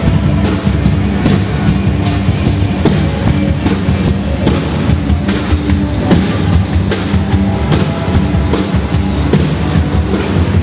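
Loud music with a steady drum beat, played over PA speakers.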